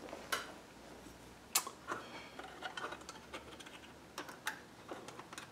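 Light clicks and taps of small parts and tools being handled on a workbench, a few scattered strokes, the loudest about a second and a half in.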